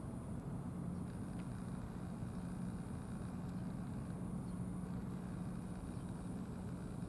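A steady low mechanical hum, like an engine idling, with a faint high-pitched tone that comes and goes about every second and a half.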